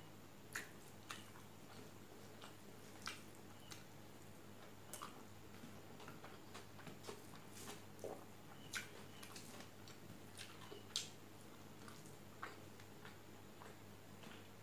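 Eating by hand: irregular sharp clicks and smacks of chewing, and fingers mixing rice against a steel plate, over a faint steady low hum.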